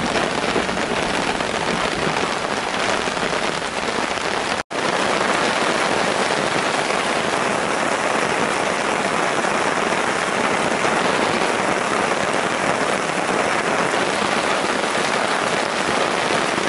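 Heavy rain falling steadily on a tarp overhead, with a brief dropout in the sound about four and a half seconds in.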